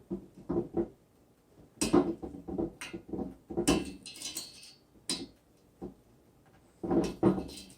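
A single-edge razor blade cutting the tails off black plastic cable ties wrapped around a metal bike rack. Sharp clicks and short scrapes come in clusters every second or two, with brief pauses between them.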